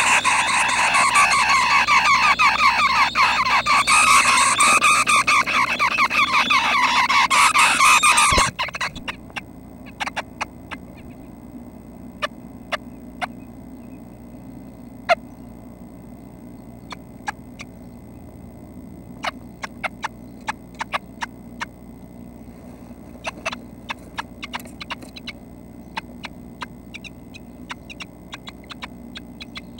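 Red-breasted nuthatch nestlings begging in a loud, dense, rapid chorus as an adult comes in to feed them. The chorus cuts off abruptly about eight seconds in, leaving only scattered faint ticks.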